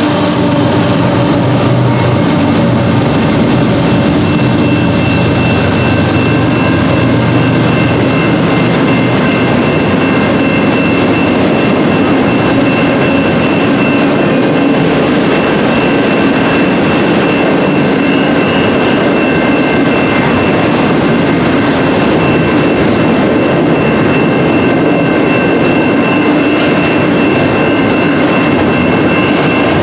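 A train rolling past close by: a loud, steady rumble of the cars on the rails that runs on without a break. Faint, steady high tones sit above it.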